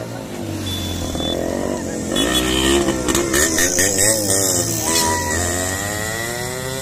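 Several motorcycle engines revving up and down as they ride past close by, loudest a few seconds in.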